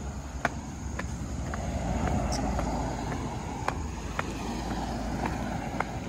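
Footsteps crunching on a gravel path, about two steps a second, over a steady low rumble.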